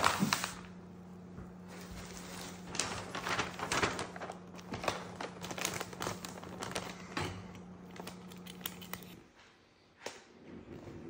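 Christmas wrapping paper rustling and crinkling in irregular bursts as it is folded and smoothed around a gift by hand, over a steady low hum that stops about nine seconds in.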